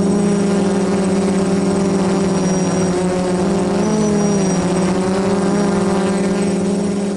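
DJI F450 quadcopter's electric motors and propellers humming steadily, heard from the camera mounted on its frame; the pitch rises briefly and settles again about four seconds in.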